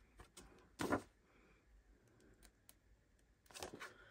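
Small craft scissors trimming ribbon trim and handling of a cardstock card: a short crisp snip-like noise about a second in, then a few brief clicks and rustles near the end.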